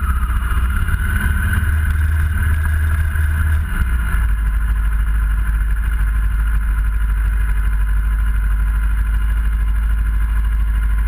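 Kawasaki ER-6f's parallel-twin engine running at low speed as the bike rolls slowly, then idling steadily once stopped, from about four seconds in.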